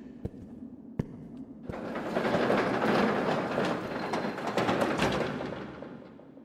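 A rushing noise with scattered knocks that swells up a couple of seconds in and slowly fades away, after a few faint clicks.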